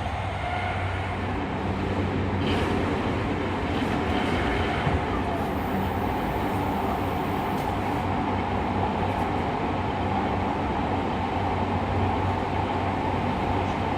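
Running sound inside a Fukuoka City Subway 2000 series car refurbished with a Hitachi hybrid SiC VVVF inverter and WN-drive traction motors: steady motor and inverter tones over wheel and rail noise in the tunnel.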